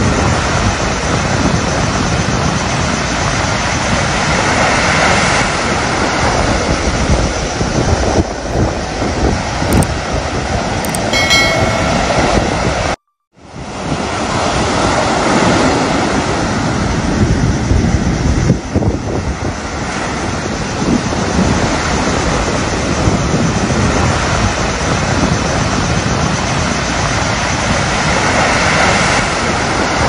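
Sea surf breaking on a sandy beach and rocks, a steady roar that swells and falls with each wave, with wind buffeting the microphone. About thirteen seconds in, the sound cuts out for a split second.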